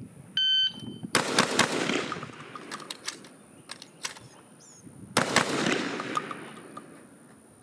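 Beretta A300 Ultima Competition 12-gauge semi-automatic shotgun firing a rapid string of shots about a second in, then a few more shots, with another loud shot about five seconds in whose report rings out and fades slowly.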